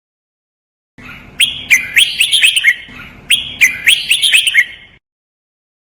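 Red-whiskered bulbul singing its song twice over: two quick phrases of sharp, sweeping whistled notes about two seconds apart, starting about a second in and cutting off abruptly about a second before the end.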